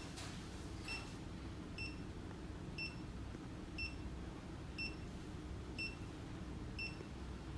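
Short, high electronic beeps from a Xiaomi Mi Electric Scooter Pro 2, repeating steadily about once a second.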